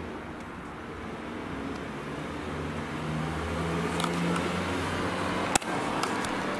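Steady low rumble and hiss with a faint hum, and a single sharp click about five and a half seconds in.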